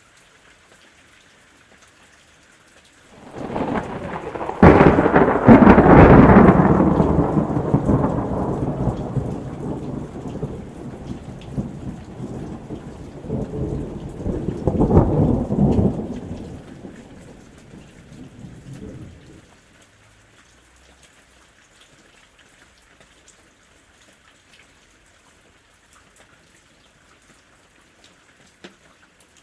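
Steady rain with a thunderclap: a rumble builds about three seconds in, breaks into a loud crack, then rolls on, swells once more, and dies away by about twenty seconds. Only the faint rain hiss is left after that.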